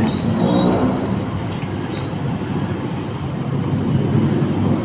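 Steady low rumble of vehicle noise, with a brief voice-like sound near the start and a few faint high squeaks.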